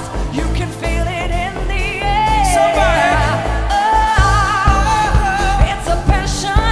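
Live band music: a female lead singer sings wavering runs and, about halfway through, holds a long note, over a steady kick drum and bass.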